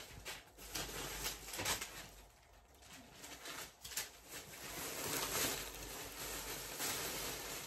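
Thin plastic shopping bag rustling and crinkling as it is handled and clothes are pulled out of it, loudest a few seconds in.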